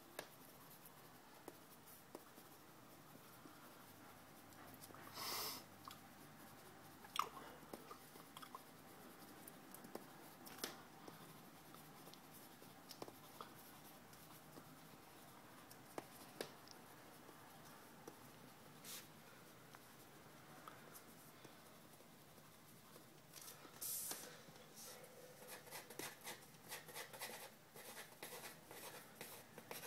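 Faint scratching of drawing strokes, with scattered small clicks and a couple of brief rustles. The scribbling gets busier over the last few seconds.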